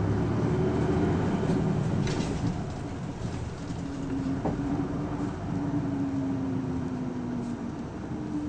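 Onboard running sound of an Isuzu Erga (PKG-LV234L2) city bus's diesel engine and road noise, heard from inside the cabin. A steady engine hum shifts slightly in pitch, and it eases a little in loudness about halfway through.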